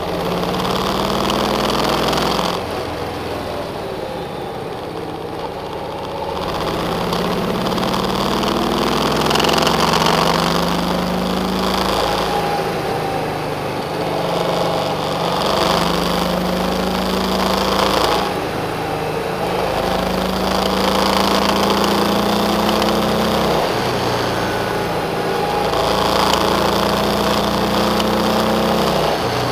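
Car engine heard from inside the cabin, its note climbing in pitch as the car accelerates and dropping back sharply, several times over, with steady road noise underneath.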